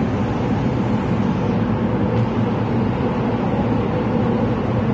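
Singapore MRT train running through a tunnel, heard from inside the carriage: a steady rumble with a faint low hum.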